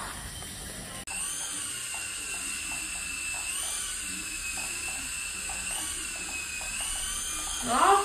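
Small electric rotor motors of an infrared remote-control toy helicopter hovering: a steady high-pitched whine that starts about a second in and rises and falls a little in pitch every couple of seconds.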